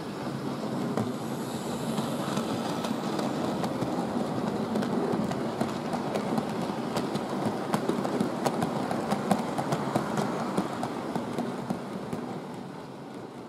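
Model railway train running past close by on model track: a steady rolling rumble of motor and wheels that builds, with a run of sharp clicks from the wheels on the track midway, then fades away near the end.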